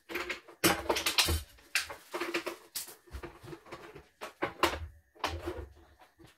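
Irregular knocks and clatter of a portable embroidery machine being handled and shifted on a wooden workbench, tipped onto its side near the end.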